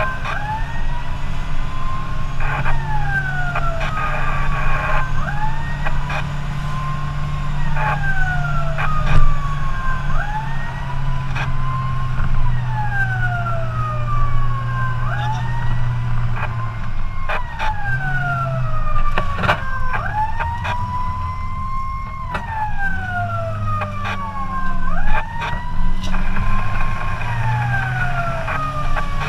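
Fire engine siren wailing, each cycle rising quickly and then falling slowly, every four seconds or so. Under it runs the steady drone of the truck's engine, with a few short sharp knocks now and then.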